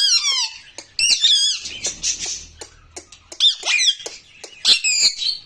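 Pet parrots squawking and chattering in about five short bouts of high, wavering calls, with sharp clicks in between.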